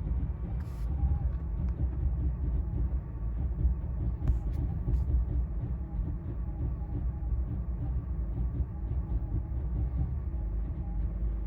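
BMW E90 engine idling roughly after a cold start, a low, uneven running whose loudness keeps wavering. The rough idle is caused by a faulty eccentric shaft sensor.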